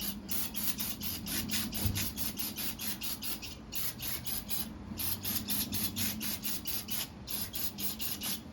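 Brush scrubbing dirt off a lawn mower engine: quick back-and-forth strokes about four a second, with a few short pauses.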